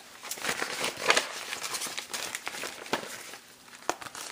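Clear plastic bag crinkling as it is handled, a quick run of crackles that thins out after about three seconds, with one sharper tick near the end.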